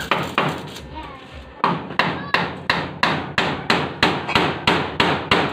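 Hammer striking the metal frame of a wire-mesh door: a few lighter, uneven taps, then a steady run of sharp metallic blows, about three a second.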